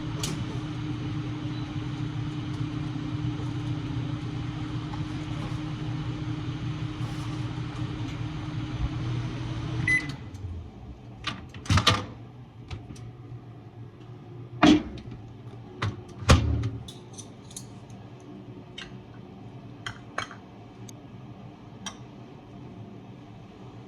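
Microwave oven running with a steady hum that stops about ten seconds in with a short beep, followed by scattered clicks and knocks, the loudest a few seconds after the hum stops.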